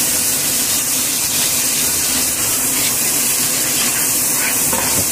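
Thick masala gravy with yogurt malai sizzling in a hot nonstick frying pan: a steady, even hiss.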